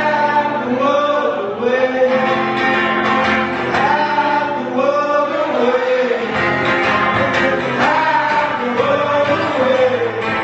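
Two men singing to two strummed acoustic guitars, performed live.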